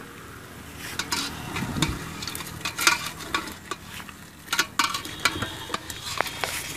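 Metal ladle stirring chicken in an aluminium pot of steaming liquid, scraping and clinking against the pot in irregular strokes that start about a second in, over a steady sizzling hiss.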